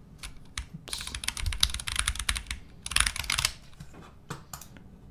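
Typing on a computer keyboard: a quick flurry of key clicks lasting about two and a half seconds, then a few scattered keystrokes near the end.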